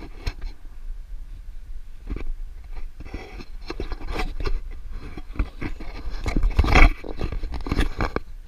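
Wind gusting over a handheld GoPro's microphone: a low rumbling buffet with irregular crackly surges, the strongest a little before the end.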